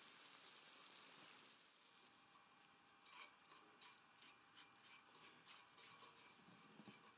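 Near silence: a faint sizzle from a butter pan sauce in a stainless steel pan for the first second and a half, then only a few faint scrapes of a wooden spatula stirring the sauce.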